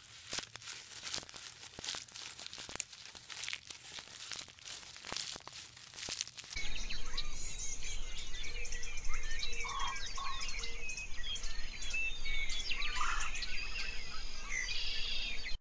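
Giraffe stripping and chewing leaves from a bush, a run of crackling, crunching and rustling. About six and a half seconds in it cuts to a steady outdoor background of many small birds chirping over a low hum.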